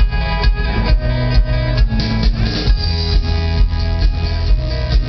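Live band playing amplified music with a steady beat of about two hits a second and a heavy, boomy low end.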